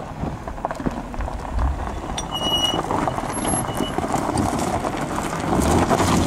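Two-wheel-drive Mercedes estate car's engine running at low speed while its tyres crunch over loose stones on rough ground, getting louder near the end as it comes close. A short high whistle sounds about two and a half seconds in.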